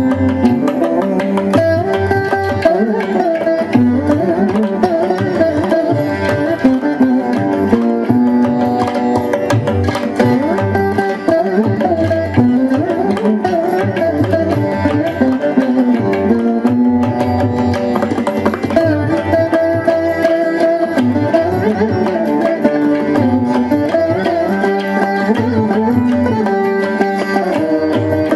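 Carnatic instrumental music on the veena, its notes bending and gliding, over a drum accompaniment.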